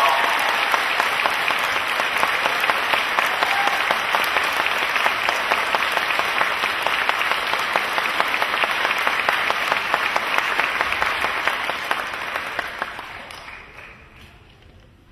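Audience applauding, a dense mass of clapping that dies away over the last few seconds.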